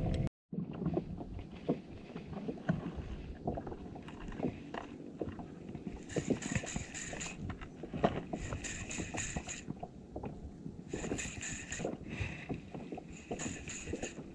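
Small spinning reel being cranked in short spells of about a second each, a fine rapid whirring tick, four times. Under it, water lapping and knocking against a plastic kayak hull.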